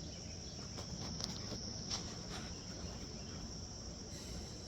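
Crickets chirping: a steady high-pitched trill, with a few faint clicks in the first couple of seconds.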